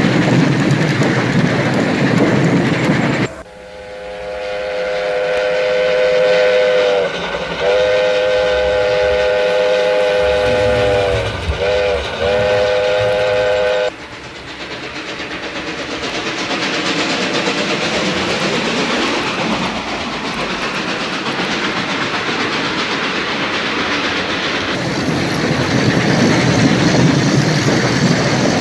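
Steam locomotive whistle sounding a chord in four blasts, long, long, short, long: the grade-crossing signal. Before and after it, the steady rattling run of a model train's wheels on the track.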